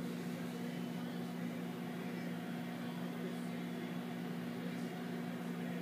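Steady low hum with a faint even hiss: background room tone.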